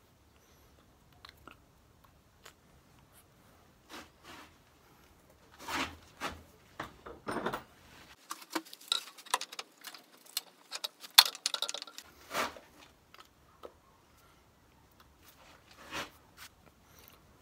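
Scattered clicks, taps and knocks of hand work with small hard objects, densest in the middle, with one sharp, loud knock about eleven seconds in.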